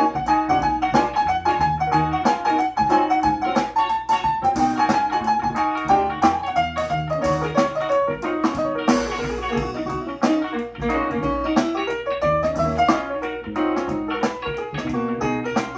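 Instrumental jazz-funk track with a melody over keyboard chords and a steady drum beat, played back through a pair of 1970s Ultralinear M15 two-way bookshelf speakers with a 4.5-inch woofer and 1-inch tweeter. The bass is thin, as these small speakers lack low end.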